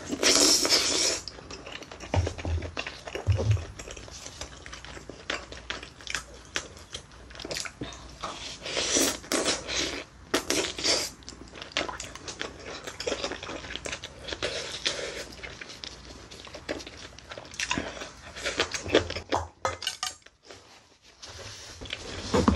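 Close-miked eating sounds: a person biting and chewing tender pork off back-bones from gamja-tang (pork back-bone stew), with a loud burst in the first second and many short clicks and smacks throughout.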